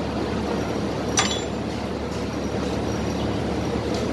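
A wrench working the stiff, mud-caked clamp bolts of a truck air-brake chamber held in a vise, with one sharp metallic clink about a second in, over a steady low rumble.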